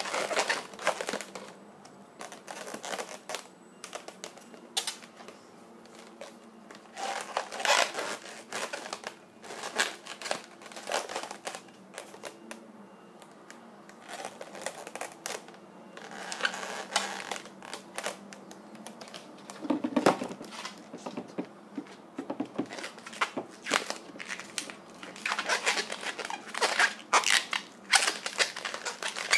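Latex modelling balloons rubbing and squeaking as they are twisted and bent by hand, in bouts a few seconds apart with quieter pauses between.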